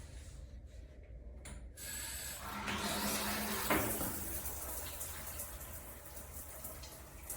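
Water spraying from a shower head, a hiss that comes on about two seconds in, is strongest for a couple of seconds, then eases off.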